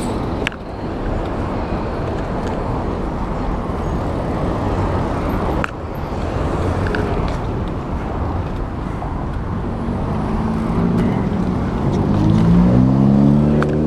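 Steady rumble of wind and rolling noise on a handlebar-mounted camera while riding a mountain bike beside street traffic, with a couple of short knocks from bumps. In the last few seconds a motor vehicle's engine rises in pitch as it accelerates.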